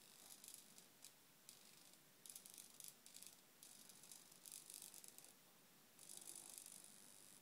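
Faint, intermittent bursts of a small RC servo whirring as it swings the pilot figure's head to follow the rudder, stopping and starting every second or so.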